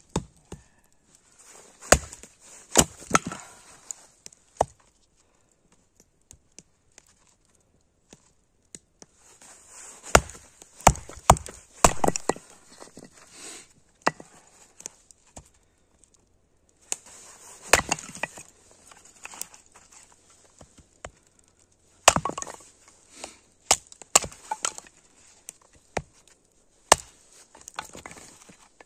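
Hatchet splitting small firewood into kindling on a log: sharp wooden chops and splitting cracks, coming in several bursts of strikes with pauses between.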